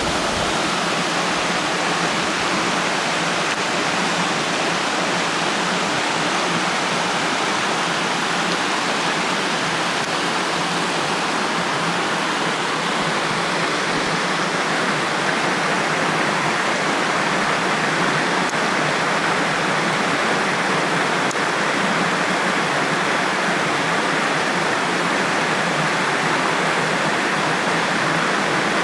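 Steady, unbroken rush of running and falling water from a stream and waterfall.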